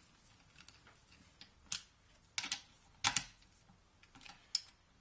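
A few sharp metal clicks and knocks of hand tools on the gearbox casing as the top-cover bolts are worked loose, spaced irregularly, with the loudest pair about three seconds in.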